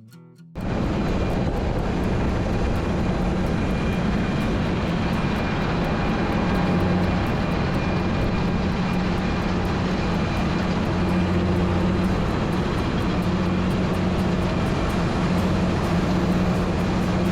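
Background music cuts off about half a second in, replaced by a loud, steady engine drone of heavy harvest machinery running in the field, with a low hum and a fine rapid ticking over it.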